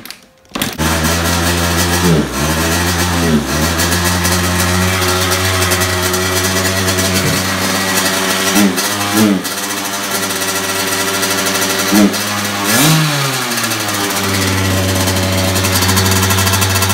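2002 Kawasaki KX100's two-stroke single-cylinder engine catching on a kick-start with the choke on, just under a second in, then running steadily while its revs dip and recover several times: the engine is bogging down, for a reason the owner could not find.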